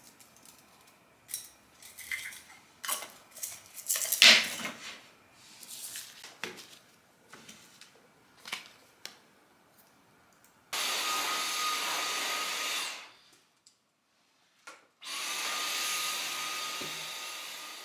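Light knocks, taps and rustles of playing cards and small items being picked up and set down. Then a Dyson cordless stick vacuum cleaner runs with a steady high whine: it starts about eleven seconds in, stops after about two seconds, and starts again about four seconds later.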